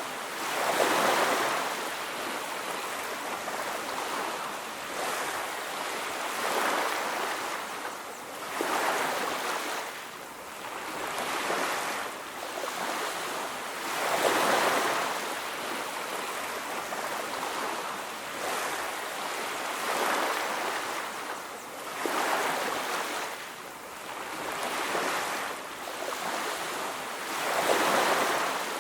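Ocean waves breaking and washing on a beach, surging in and falling back roughly every two to three seconds over a steady rush of surf.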